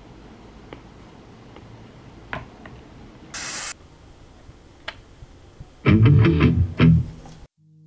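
Marshall Bluetooth speaker switched on, playing its start-up sound: a short, loud electric-guitar strum about six seconds in, ringing for about a second before it cuts off. Before it, quiet room tone with a few light taps and a brief hiss.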